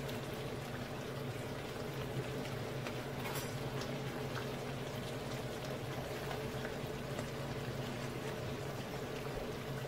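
Chicken curry simmering in a pan, with soft bubbling and small pops over a steady low hum. A sharper click comes about three and a half seconds in.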